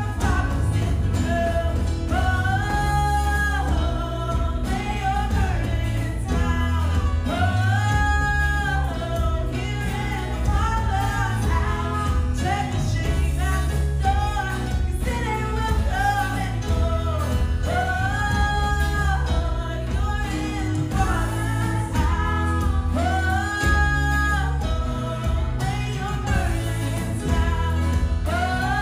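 A worship song: singing over instrumental backing with a strong steady bass.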